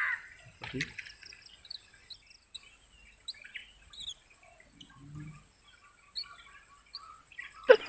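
Small birds chirping: many short, scattered calls.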